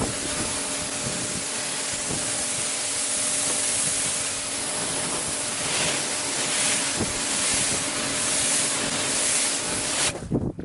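Pressure washer lance spraying a jet of water onto a car bonnet: a steady hiss with a low hum underneath, cutting off about ten seconds in.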